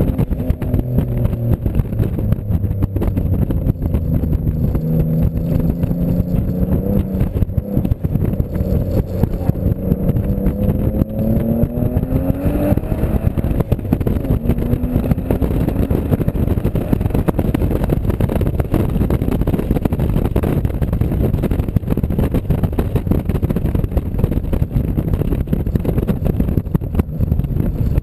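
Car engine under way on a track lap, heard through a dashboard camera inside the cabin, over heavy road and wind rumble. Its pitch sags, then climbs steadily from about nine seconds in to about thirteen seconds, drops off sharply, and then runs fairly steady.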